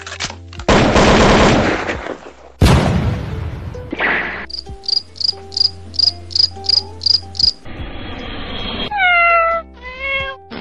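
Edited sound-effect montage: a loud noisy burst and a falling whoosh, then crickets chirping at about three or four chirps a second, then cat meows near the end, over a steady low hum.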